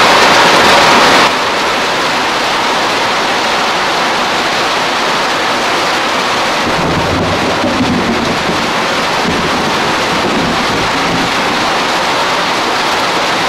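Heavy rain pouring steadily onto a corrugated roof overhead and the garden around it, a little louder for the first second. A low rumble of thunder rolls in about seven seconds in and lasts several seconds.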